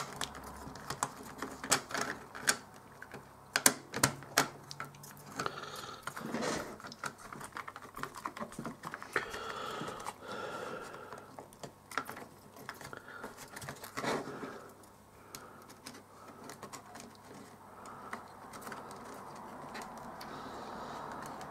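Irregular small clicks and taps of a clear acrylic oscilloscope case and its parts being handled and fitted together by hand, busiest in the first half with a louder click about two-thirds of the way through.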